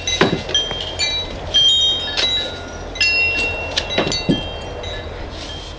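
Wind chimes ringing, with a few sharp clicks and knocks from the travel crate's side levers and frame being worked and popped into place.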